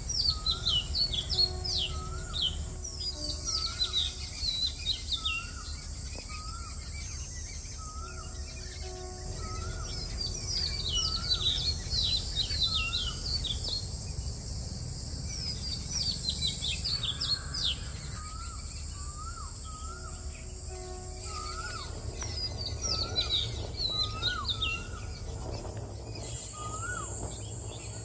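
Countryside birdsong: many birds chirping in quick falling twitters, with a short rising call repeated about once a second, over a steady high insect drone and a low background rumble.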